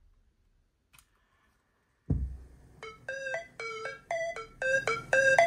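A single button click about a second in, then a low thump, then keyboard music starts: short, bright synth notes in a bouncing rhythm.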